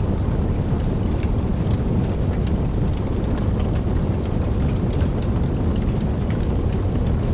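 Campfire burning, with a steady low rumble of flames and soft, scattered crackles and pops.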